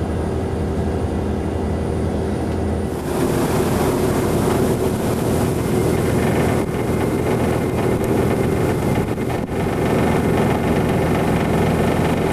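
Fishing seiner's engine running with a steady drone. About three seconds in, a loud rush of wind and choppy water joins it and runs on over the engine.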